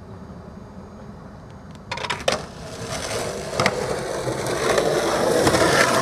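After about two seconds of faint low background, skateboard wheels start rolling on rough concrete with a few sharp clacks of the board, the rolling growing steadily louder as the rider comes closer, with another sharp clack a little after three and a half seconds.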